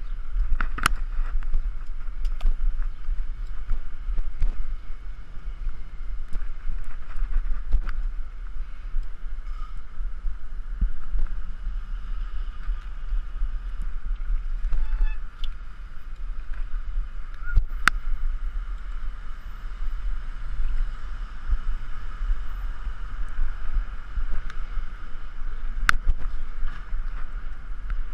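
Wind buffeting a GoPro camera on a moving bicycle, a steady low rumble with a hiss over it, broken by a few sharp clicks.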